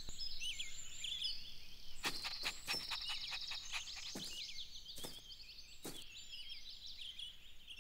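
Faint garden ambience of small birds chirping, many short high twitters, with a brief rapid trill about two and a half seconds in. Several soft, sharp taps sound between about two and six seconds in.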